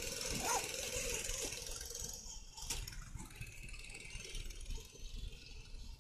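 A 98 cc mini bike's small engine running faintly at a distance, falling away after about two seconds, over a steady low rumble, with one sharp click a little before the middle.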